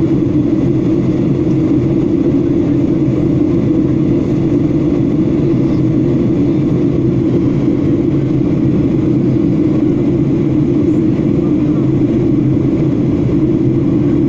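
Steady drone inside an airliner cabin in flight: engine and airflow noise heard from a window seat, a constant low hum with a hiss above it.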